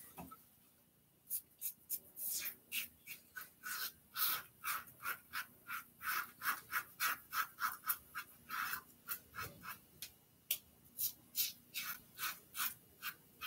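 Safety razor scraping stubble off a lathered cheek in quick short strokes, about three a second, starting about a second in.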